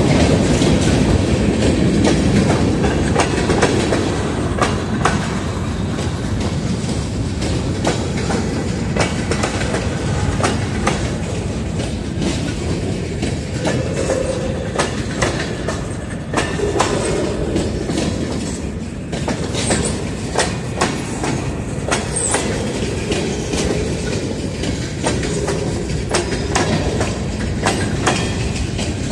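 Union Pacific local freight train rolling past, its wheels clicking over rail joints with a steady rumble. Two brief high wheel squeals come about two-thirds of the way through.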